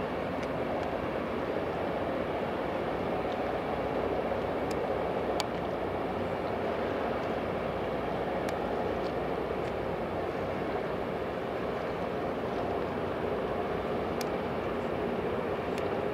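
Steady drone of a ship's engine running on the water, with a few faint sharp ticks over it.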